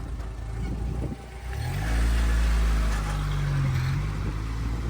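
Car pulling away: the engine revs up about a second and a half in, then holds a steadier drone.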